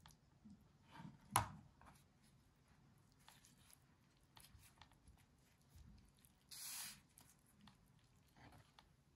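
Faint food-handling sounds: a single sharp tap of a metal spoon against the wooden cutting board about a second and a half in, then soft rustling of a thin pastry sheet being folded and rolled around chicken filling, with one brief louder rustle about two-thirds of the way through.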